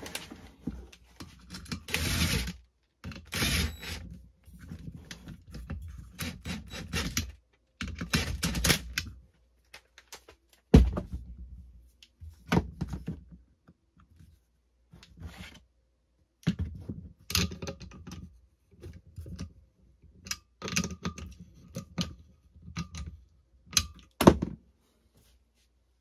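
Hard plastic parts of a DeWalt drill body and black horn trumpets being handled and fitted together on a workbench: irregular clicking, clattering and rustling, with a sharp knock about eleven seconds in and another near the end.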